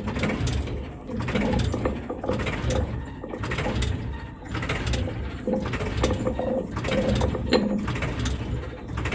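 Battery-powered toy vehicle's small motor and plastic gears running, with a rattling, clicking gear sound.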